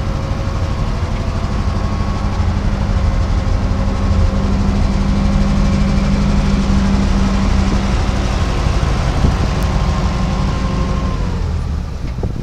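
1966 International 1700 truck's 345 V8 gas engine running steadily at idle, with a thin steady whine over it. About eleven seconds in, the whine drops in pitch and the running sound falls away.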